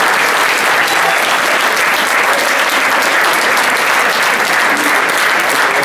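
A large crowd of football supporters clapping their hands, a steady, dense applause with many hands clapping close by.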